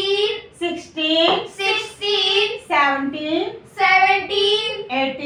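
A high voice reciting number names and their spellings in a sing-song chant, in short rhythmic phrases one after another.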